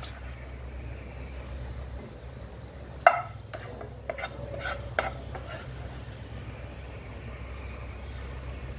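Wooden spatula scraping cooked onion-tomato mixture out of a frying pan into a steel mixer-grinder jar, with a run of sharp knocks of the spatula starting about three seconds in, the first the loudest. A steady low hum runs underneath.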